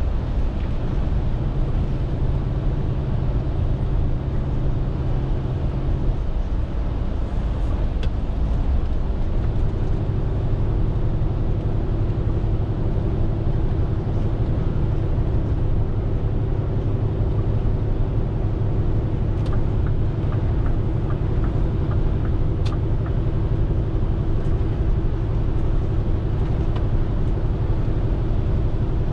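Scania R450 lorry's 13-litre inline-six diesel running steadily under way. About six seconds in its note drops away, then returns about three seconds later at a slightly lower pitch, as in a gear change.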